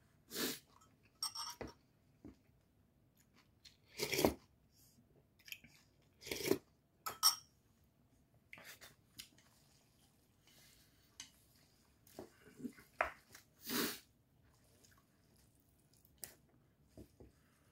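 Eating sounds from a man at a bowl of spicy mixed noodles: chewing, and wooden chopsticks scraping and knocking in a stainless steel bowl as the noodles are mixed and lifted. It comes as a dozen or so short, separate sounds with quiet between them, the loudest about four seconds in and again near the end.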